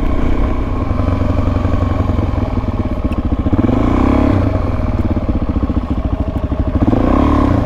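Suzuki DR-Z400S single-cylinder engine running steadily under way, with its note swelling a little about four seconds in and again near the end.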